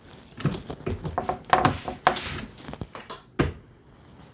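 RCBS single-stage reloading press being cycled to crimp a 350 Legend cartridge: a string of metal clanks and knocks from the ram and handle linkage, with one heavy knock about three and a half seconds in.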